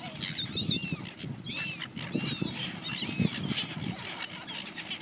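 A flock of silver gulls calling: many short, squawking cries from different birds, overlapping one after another.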